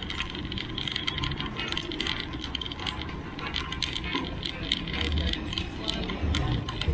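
Bicycle rattling as it is ridden over a rough street: a steady clatter of small clicks and knocks over a low rumble.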